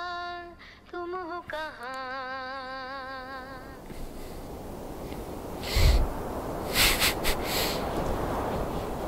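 A single voice holds a long sung note with vibrato, breaks off briefly about a second in, then holds a lower note. It gives way to a hiss-like noise with several heavy thumps between about six and eight seconds.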